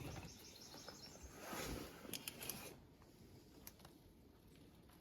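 Quiet background with a brief rustle, then a quick run of faint clicks and one more click later.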